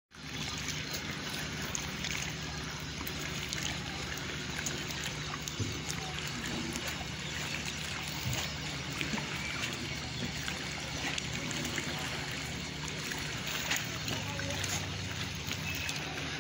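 Small evening waves of calm sea water lapping with many little splashes and trickles, and occasional bird chirps.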